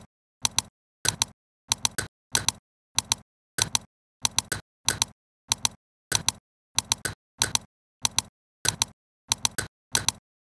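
Sharp double clicks repeated at an even pace, about three every two seconds, with dead silence between them.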